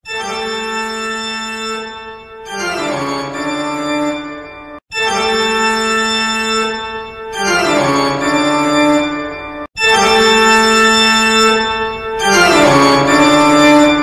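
A short organ-like keyboard phrase, a held chord that steps down in pitch about halfway through, played three times with brief breaks. Each repeat is louder than the last.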